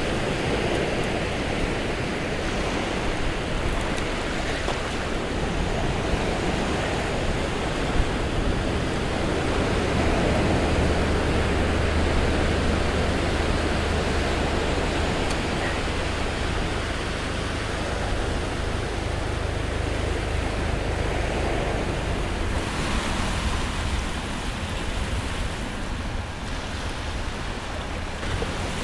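Ocean surf washing steadily over a rocky intertidal shore, an even rushing with a deep low rumble underneath. A single sharp click stands out about eight seconds in.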